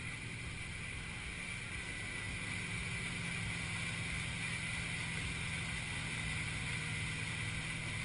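Motorboat engine running under way, with water rushing along the hull and wind on the microphone. It grows a little louder about two seconds in as the boat picks up speed.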